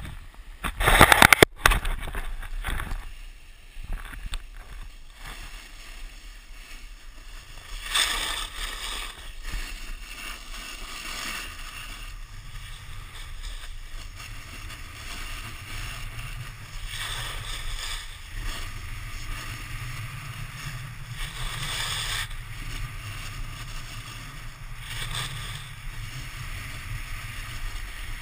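Snowboard sliding over packed snow: a steady hissing scrape with a deep rumble underneath that swells with each turn, and wind buffeting the pole-mounted camera's microphone. Loud knocks and rubbing come from the glove on the camera pole about a second in.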